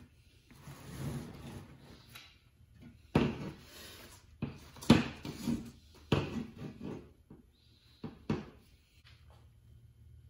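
A metal layout square being slid and set down on duct board: scraping with several sharp knocks and clunks, the loudest about three and five seconds in.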